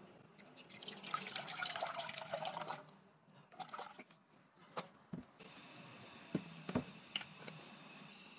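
Milk poured into an empty metal saucepan, splashing and filling for about two seconds, followed by a few light knocks and clicks.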